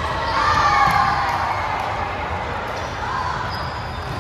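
Indoor volleyball play: the ball struck and bouncing on the court, with players' voices.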